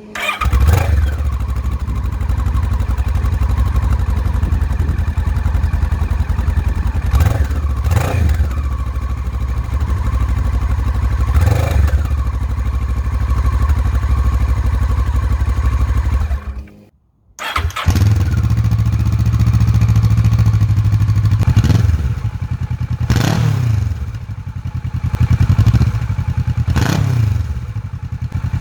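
Kawasaki Versys 650 parallel-twin engine through a MIVV Storm aftermarket exhaust: it starts, idles and is given several short throttle blips. About two-thirds of the way through it cuts off for a moment, then starts again, idles and is revved a few more times.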